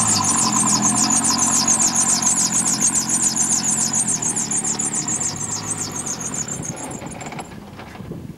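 Small stationary engine on a trailer running steadily, with a fast high chatter over the low engine note; the sound fades toward the end and the chatter stops short.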